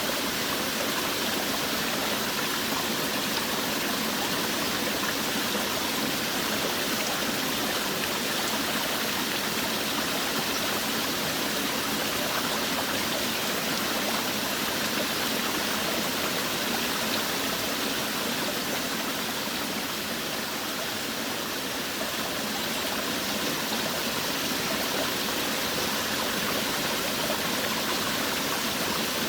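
Forest waterfall running: steady rushing of falling water, even and unbroken.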